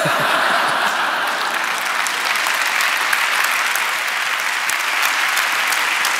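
A large seated audience applauding, many hands clapping at once. It swells up right at the start, then holds steady.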